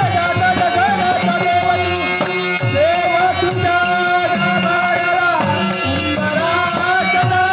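Dashavatar folk-theatre langar music: a held, slightly wavering melody over regular drum strokes and a quick, steady ticking of small hand percussion.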